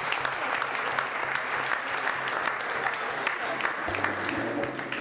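Applause: many hands clapping at once in a dense, steady patter, with a low hum underneath.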